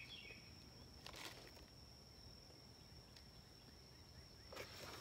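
Near silence with a faint, steady high-pitched insect drone, and a light rustle about a second in and again near the end.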